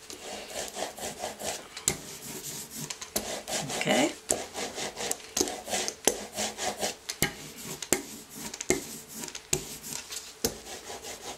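Hand ink brayer loaded with silver oil-based printmaking ink, rolled back and forth over a carved Styrofoam printing plate: a repeated rubbing, crackling rasp with each stroke.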